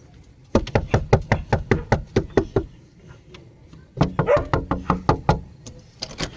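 Rapid knocking on a door: two quick runs of knocks, about seven a second, each lasting one to two seconds, separated by a pause of just over a second.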